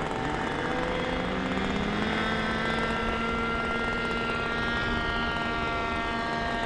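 Radio-controlled model aircraft's motor and propeller running up. The whine rises in pitch over about two seconds, then holds a steady pitch.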